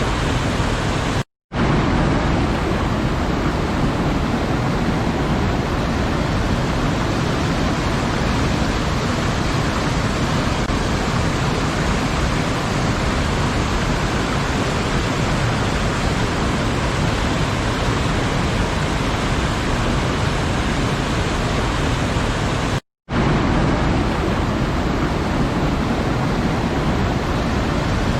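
Waterfall: a steady, even rush of falling water. It cuts out to silence for a split second twice, about a second in and again about five seconds before the end, like the joins of a looped recording.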